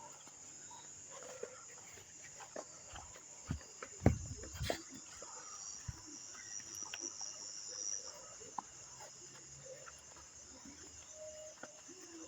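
Crickets or similar night insects trilling steadily in a high, even band, with scattered knocks and thumps, the loudest about four seconds in.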